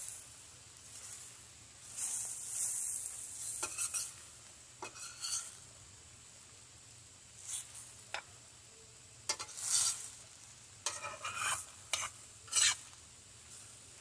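Stir-frying: a metal spoon stirs and scrapes broccoli, red pepper and onion around a stainless steel frying pan as they sizzle in olive oil, in irregular strokes with short pauses between.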